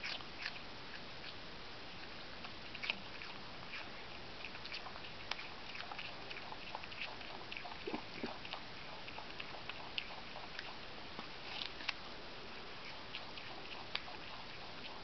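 Brushtail possum chewing and biting a piece of fruit: irregular small wet clicks and crunches at an uneven pace.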